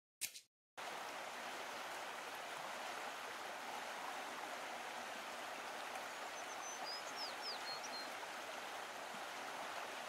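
Water of a shallow stream running steadily. It starts just under a second in, after a short click, and a few faint high chirps come through about seven seconds in.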